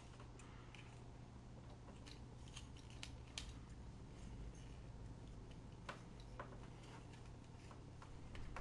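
Faint, scattered clicks of the hard plastic joints and parts of a Transformers Animated Deluxe Class Cybertron Mode Ratchet figure being moved by hand into robot mode, a few clustered around two to three seconds in and a couple more near six seconds.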